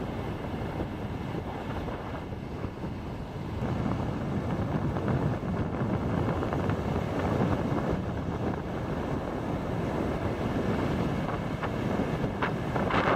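Wind buffeting the microphone over small waves breaking on the shore, a steady rush that grows louder about four seconds in.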